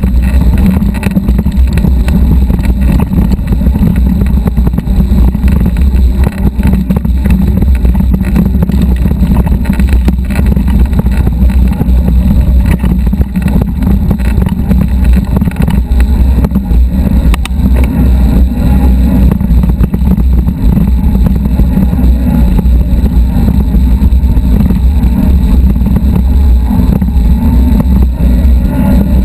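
Mountain bike riding a rough dirt trail, heard through a camera mounted on the bike: a loud, steady low rumble of wind buffeting and frame vibration.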